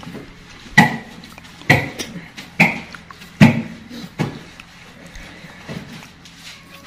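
Five sharp knocks about a second apart, each with a short metallic ring, from hands working at an open refrigerator while cleaning it; fainter small knocks follow.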